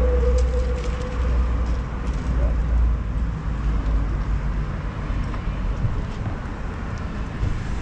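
Street ambience heard from a bicycle in a group of cyclists: a steady low rumble of wind and traffic, with faint voices and a few light clicks.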